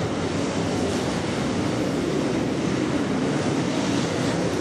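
Dirt late model race cars' V8 engines running at speed around the dirt oval: a steady, dense engine noise from the field.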